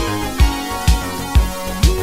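Disco music with a steady four-on-the-floor kick drum, about two beats a second. Over it a bass and a melody line step downward in pitch, then jump back up near the end.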